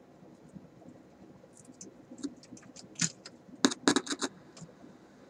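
Scattered clicks and scratchy crackles from the Philco car radio as it is worked on the bench, with a quick burst of several clicks a little over halfway through.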